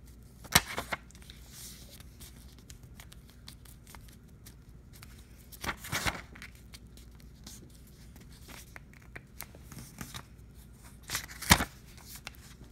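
Sheets of printer paper rustling as the edges of a stapled, layered paper foldable are flipped up and creased by hand. There are three short bursts about five seconds apart, the loudest near the end, with a few fainter ones between.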